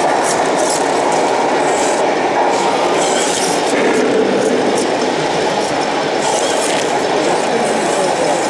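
1/16-scale RC tanks running: a steady, loud mechanical clatter and whir from their gearboxes and tracks, with scattered small clicks.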